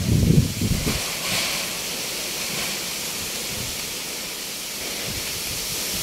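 Strong wind rushing through bamboo and trees: a steady hiss of thrashing leaves, with gusts buffeting the microphone in a loud low rumble during about the first second.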